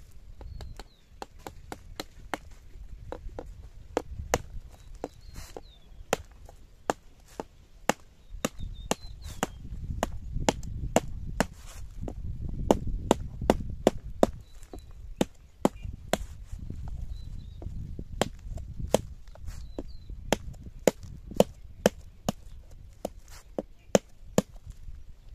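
A knife chopping into the hard rind of a small seed squash: many sharp knocks, roughly two a second and irregular, as the blade hacks the squash open to reach its seeds.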